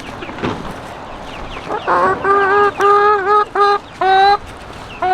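Backyard hen giving a run of about five short honk-like calls in quick succession, each a steady flat note, starting about two seconds in.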